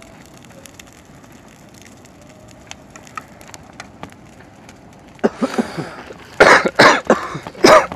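Faint crackling and ticking at first, then a person coughing hard several times in the last three seconds, harsh and loud.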